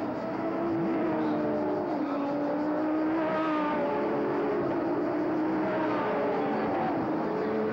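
Several GT race car engines running at once on a circuit, their pitches rising and falling as the cars brake and accelerate, with a sharp rising rev about a second in.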